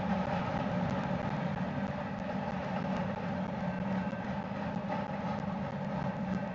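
Steady rumble of a freight train's double-stack container cars rolling past, the wheels running on the rails.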